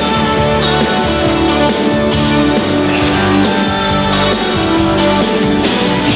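Rock music: electric guitar and drum kit playing an instrumental passage with a steady beat.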